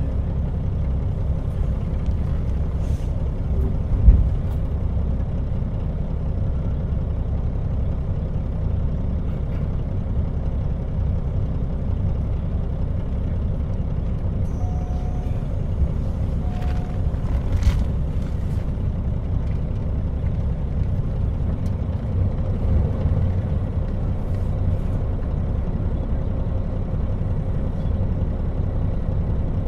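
JR Hokkaido KiHa 40 diesel railcar running, heard from on board: a steady low rumble of the diesel engine and wheels on the rails. A single sharp knock comes about four seconds in, with a few faint clicks a little past the middle.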